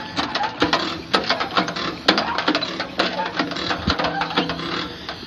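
Manual stainless-steel knapsack sprayer being pumped by its hand lever: a fast, irregular metallic clicking and clacking of the pump mechanism over a steady hiss.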